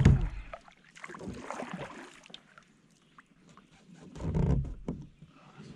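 Kayak paddle strokes: the blade dipping and pulling through the water, with a louder stroke at the start and another about four seconds in.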